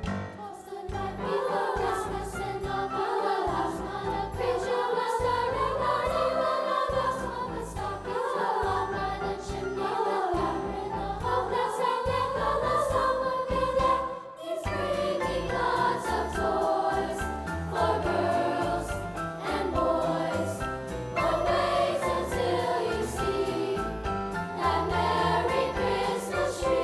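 A school choir singing a Christmas song with accompaniment, with a short break between phrases about halfway through.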